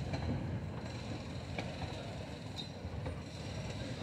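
Narrow-gauge railway carriages rolling slowly past, a low steady rumble with a few faint clicks.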